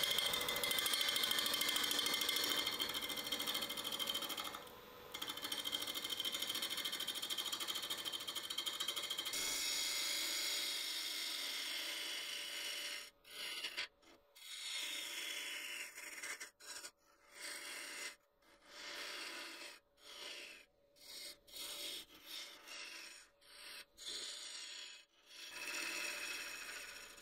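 Wood lathe running while a gouge cuts into a spinning manzanita burl: a steady hissing scrape of the cut over the machine's hum. From about halfway on, the cutting comes in short passes, a second or so each, broken by sudden gaps.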